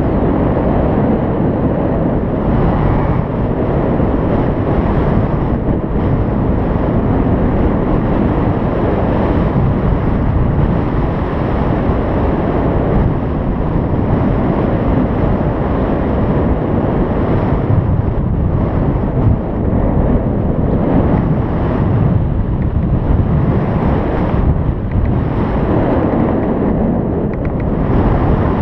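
Loud, steady wind rushing over the microphone as the paraglider flies through the air.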